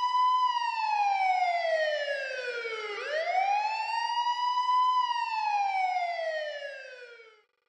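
Police siren wailing in two slow cycles, each rising and then falling in pitch, fading out near the end.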